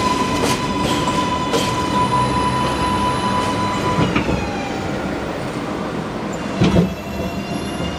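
R142A subway train running on the rails, heard from the open gap between two cars: steady wheel and track rumble with irregular rail-joint clicks. A steady high whine stops about halfway through, and a loud clunk comes near the end.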